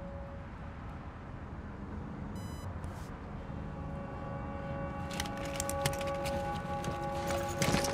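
Low steady rumble of a car cabin stuck in traffic. Held tones of film score thicken from about four seconds in, with scattered light clicks and jingles near the end.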